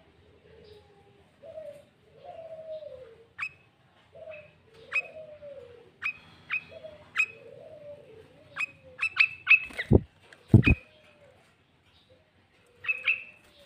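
Sooty-headed bulbul calling: a run of short, sharp, whistled chirps that come faster about nine seconds in, over lower gliding warbled notes. Two loud knocks about ten and ten and a half seconds in, then a last burst of chirps near the end.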